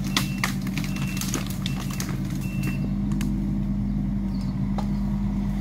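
A mini excavator's engine running steadily, with scattered sharp clicks and knocks on top of it.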